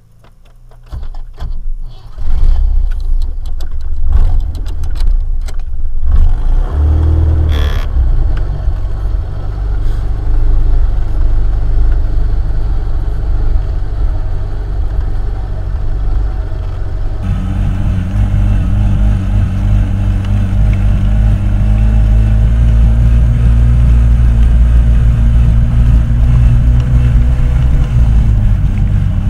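A UAZ off-roader's engine running as it drives through tall grass, with scattered knocks and rattles in the first few seconds. About halfway through, the engine note steps up and runs steadily louder.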